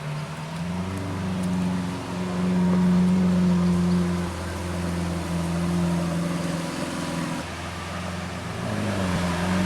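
Car engine sound, a steady low drone that dips and recovers in pitch about half a second in and again near the end, with a short break about seven and a half seconds in.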